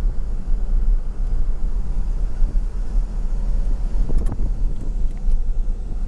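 Steady low rumble of a car's engine and tyres heard from inside the cabin while driving. A brief wavering sound comes about four seconds in.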